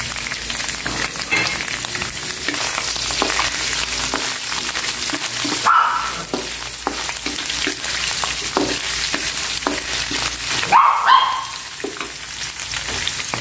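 Beef strips frying in hot oil in a wok, a steady sizzle, stirred with a wooden spatula that scrapes and taps against the pan. Twice a short, louder, higher-pitched sound cuts in, about six and eleven seconds in.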